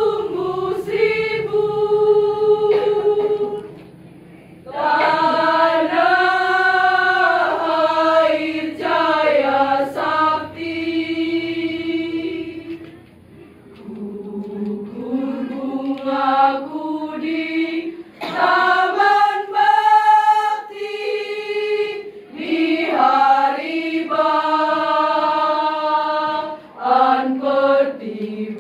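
Women's choir singing in long sustained phrases, with short breaks about four and thirteen seconds in.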